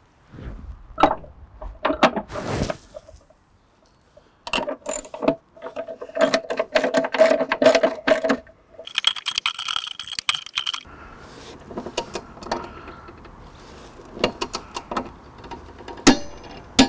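Ratchet wrench clicking in quick runs as bolts are tightened, with metal tool clinks between runs. There is a single sharp click near the end.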